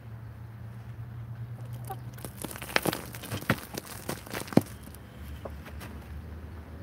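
Chickens clucking in a coop, with a quick run of sharp taps and clicks close to the microphone in the middle, the loudest one near its end.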